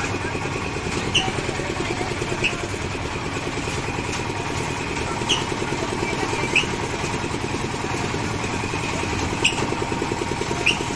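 An engine running steadily, with short high metal creaks in pairs about every four seconds from the swinging boat swing ride.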